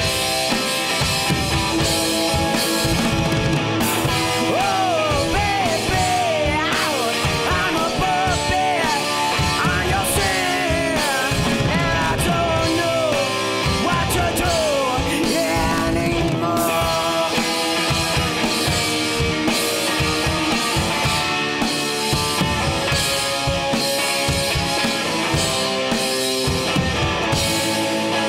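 Rock band playing live: distorted electric guitar over a Gretsch drum kit, with a melody of bending notes through the middle.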